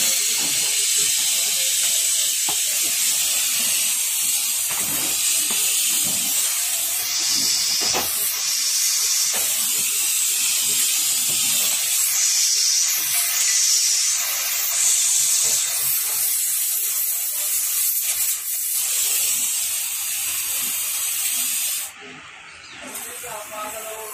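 Gas blowtorch flame hissing steadily while it melts lead into a battery terminal mould, swelling and easing a few times, then cutting off abruptly near the end.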